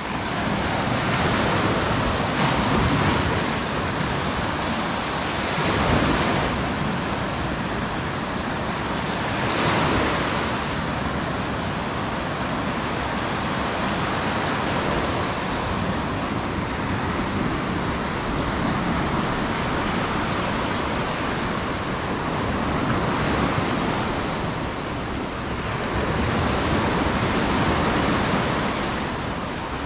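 Sea waves breaking and washing up on a beach, the surf swelling and ebbing every few seconds.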